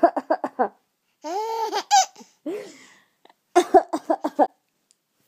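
Baby boy laughing in three short bouts: quick pulsing giggles, then a higher squealing laugh, then another run of quick giggles near the end. He is laughing at coughing, which he finds funny.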